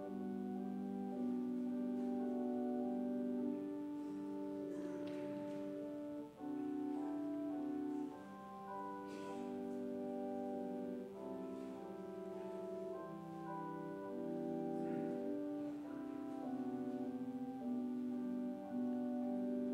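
Slow, quiet instrumental music on a keyboard instrument: held chords that change every second or two, with no drums or beat.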